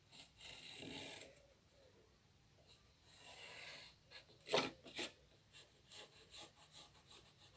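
Pencil drawing on a wooden floorboard: two longer scratchy strokes, then two sharp taps about four and a half and five seconds in, followed by short light scratches.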